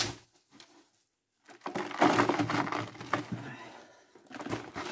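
Hands scooping and working moist coconut coir substrate in a foam box: a crackly rustle starting about one and a half seconds in and fading by about four seconds, with a shorter rustle near the end.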